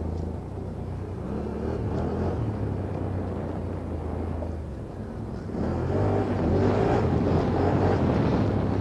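Quad bike (ATV) engine running under throttle, revving up harder and louder about five and a half seconds in.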